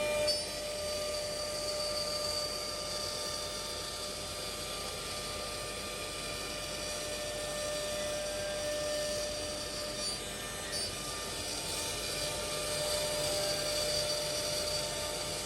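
Spindles of a four-head CNC wood router running with a steady whine over a steady machining noise, as when routing panel board.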